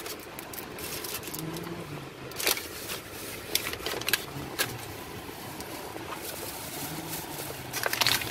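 Plastic takeout bag rustling and crinkling as it is opened and handled, with a few sharper crackles, around 2.5 s, 3.5 to 4 s and near the end, over a steady car-cabin hum.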